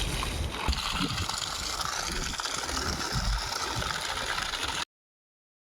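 Water rushing steadily from the outlet pipe of a newly fitted 3 HP borewell submersible pump, with uneven low rumbles under it; it cuts off abruptly near the end.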